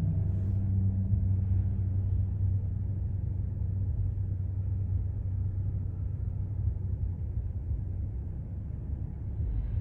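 Car engine and road noise: a steady low rumble, with a faint hum that fades out about two seconds in.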